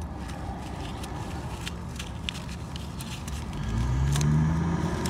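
Scattered faint clicks of hands handling wiring and connectors in an engine bay over a low rumble. About three and a half seconds in, a louder vehicle engine comes in and rises in pitch.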